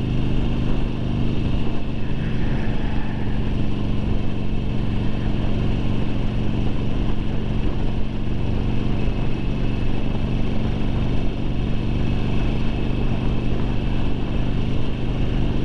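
2009 Harley-Davidson Sportster 1200 Low's air-cooled Evolution V-twin running at a steady cruise of about 45 mph, its engine note holding the same pitch throughout over a constant rush of road noise.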